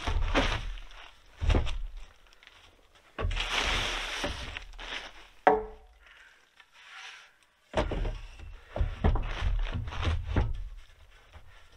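Wooden roof poles being handled and laid side by side: repeated knocks and thuds of pole against pole, and scraping as they slide into place. About five and a half seconds in comes one sharp knock that rings briefly, the loudest sound.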